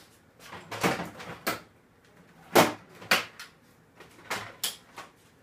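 Hand tools clacking and rattling against each other as they are rummaged through, in several short clusters of sharp knocks.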